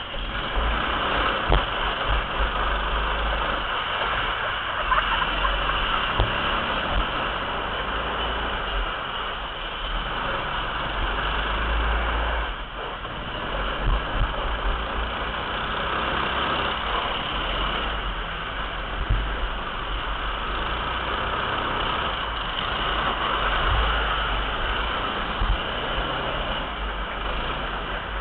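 Ice kart's small engine running steadily as the kart drives around the rink, heard from an onboard camera, with a deep rumble underneath and a few short clicks.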